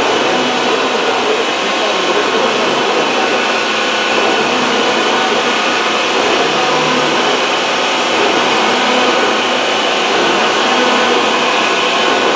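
Large Hyupshin Drill Master gantry drilling machine running, a loud steady even machine noise with no breaks.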